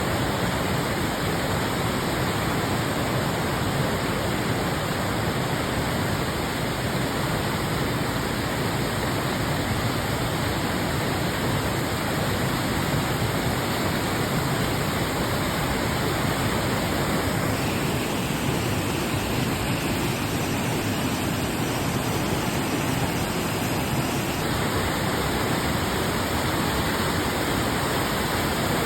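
Pistyll Rhaeadr, a tall single-drop waterfall: a steady, unbroken rush of falling water.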